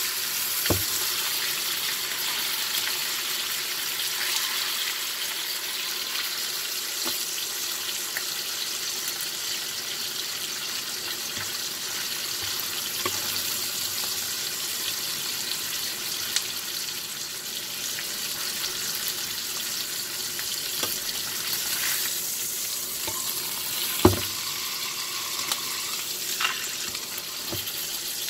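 Ribeye steak frying in butter in a hot skillet: a steady sizzle. A few sharp metal clicks come from the long steel cooking tweezers touching the pan, the loudest one near the end.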